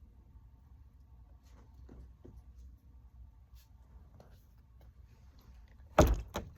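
Faint handling and rustling with a few light taps, then a loud sharp knock about six seconds in, followed quickly by a smaller one.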